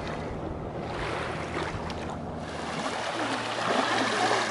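Steady drone of a distant motorboat engine on the lake, with wind on the microphone and small waves lapping at the shore.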